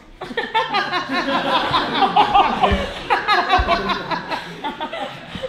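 Theatre audience laughing, many voices overlapping at once, dying down near the end.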